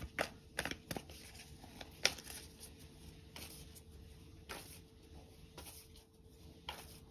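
A deck of tarot cards being shuffled and handled: a run of quick card snaps and taps in the first couple of seconds, the sharpest about two seconds in, then a few faint single clicks spaced about a second apart.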